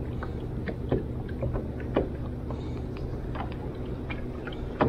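Steady hum of a boat motor, with scattered light clicks and taps.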